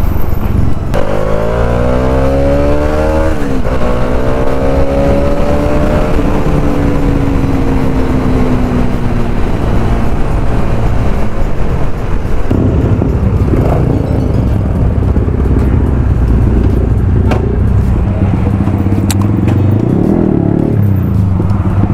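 Motorcycle engine under way: it revs up with rising pitch for about two seconds, drops briefly, then winds down slowly as the throttle eases, over steady low road noise.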